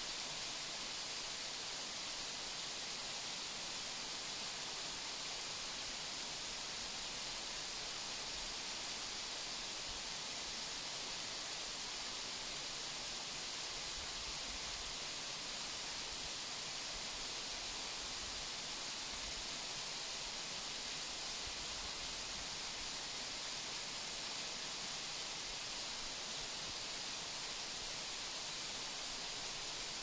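Waterfall: water falling and splashing in a steady, unbroken hiss, strongest in the higher pitches.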